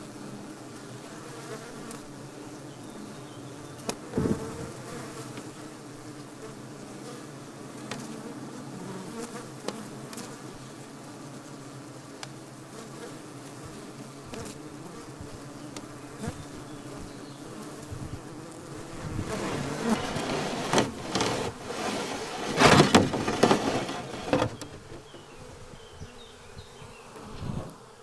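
Honeybee colony humming inside a Japanese box hive, a steady buzz of many bees. A sharp knock comes about 4 s in, and a run of louder bumps and knocks between about 19 and 25 s.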